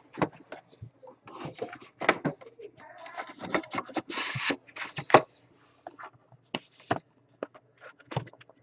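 Scattered taps, knocks and scraping of a cardboard trading-card box being handled and opened, its lid slid off and the box shifted about on a table.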